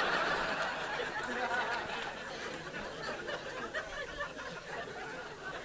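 Live audience laughing, loudest at the start and slowly dying away.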